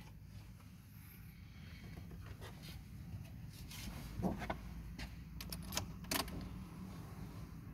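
Faint handling noises in a car cabin over a low steady hum: a short squeak about four seconds in, then a quick cluster of sharp clicks near the end as the ignition key is turned.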